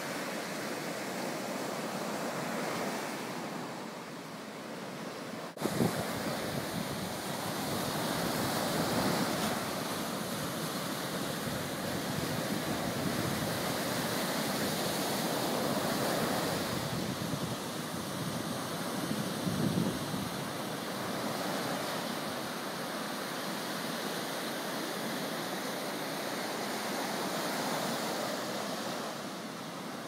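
Ocean surf breaking and its foam washing up the sand, a steady rush that swells each time a wave breaks and washes in. A single brief knock about five and a half seconds in.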